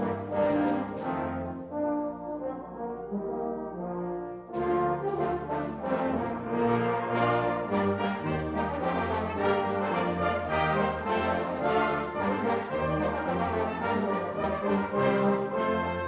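Orchestral film music: sustained chords that break into a fuller, busier passage about four and a half seconds in.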